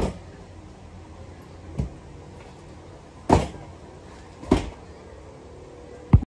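Hollow knocks and thumps of a padded divider insert being handled and set down into a hard plastic case, five in all, the loudest three about three and a half seconds in, four and a half seconds in, and just before the end. A faint steady hum runs underneath.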